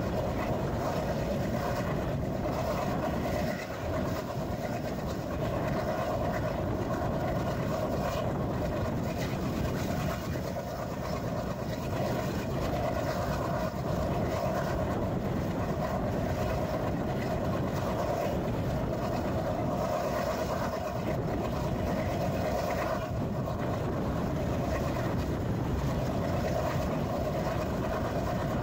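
Express passenger train running along the track: a steady rumble with a mid-pitched drone that swells and fades every few seconds.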